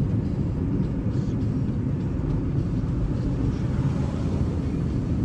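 Steady road and engine rumble of a car, heard from inside the cabin while driving.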